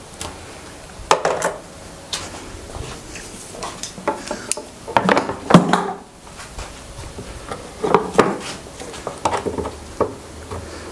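Irregular wooden knocks and light metal clatter from tools and plywood being handled, with no power tool running.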